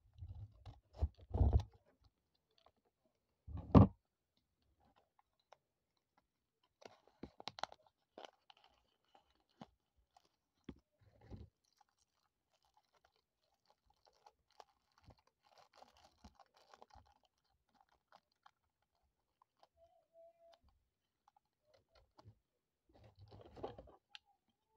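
Scissors snipping through a small taped paper packet, with a sharp snap about four seconds in. Then scattered faint crinkles and clicks of clear plastic wrap being picked at and unwrapped by hand, with a short burst of rustling near the end.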